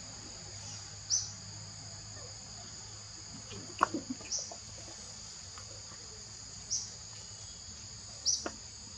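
Steady high-pitched drone of forest insects, on two close pitches. Over it come a few brief high chirps, and a cluster of sharp short squeaks or clicks about four seconds in and again near the end.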